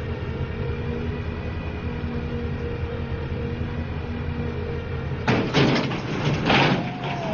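A heavy machine's engine running steadily, then about five seconds in, a loud rush of noise, with a second burst about a second later.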